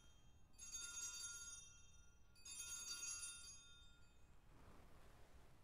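Altar bells rung twice at the elevation of the host, each ring a bright cluster of high ringing tones that dies away after about a second.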